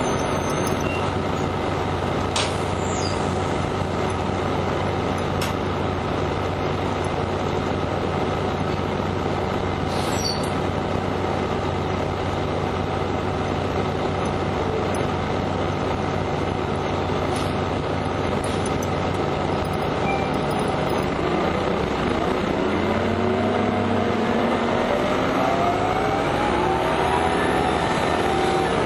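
Orion V city bus's diesel engine running at a steady note, with a few faint clicks. Near the end it climbs steadily in pitch as the bus pulls away and accelerates.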